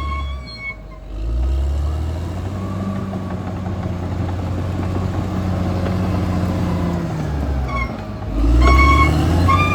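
Caterpillar D6R XL bulldozer's diesel engine running steadily under load, surging louder about eight seconds in.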